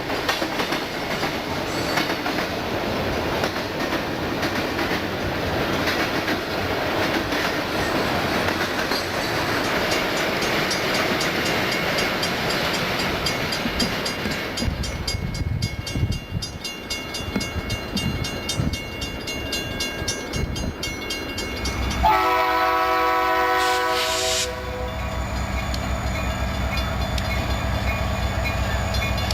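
Freight train rolling past on the rails, wheels clicking rapidly over rail joints. About three quarters of the way through, a diesel locomotive's air horn sounds one blast of about two and a half seconds, and a low steady diesel engine rumble follows.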